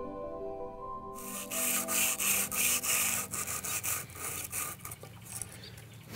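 Hand-sanding a small block of pine: quick back-and-forth rasping strokes of sandpaper on wood, about three a second, starting about a second in and growing lighter near the end. Soft background music with held tones fades under the first strokes.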